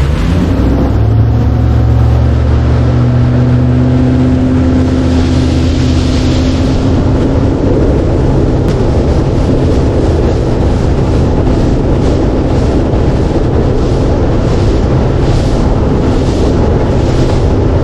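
Outboard motor of a fishing boat running under way, its pitch climbing over the first second or two and then holding steady, with wind rushing over the microphone.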